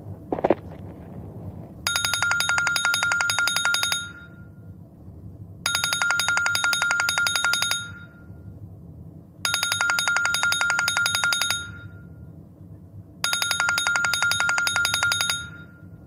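Telephone ringing: four identical trilling rings, each about two seconds long, repeating roughly every four seconds. A sharp click about half a second in comes before the first ring.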